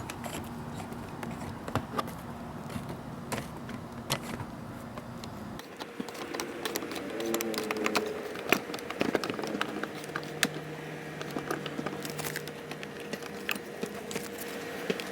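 Irregular metallic clicks and clinks of a hand tool working the frame slider's mounting bolt as it is tightened down against the frame. A low background hum drops out about a third of the way in.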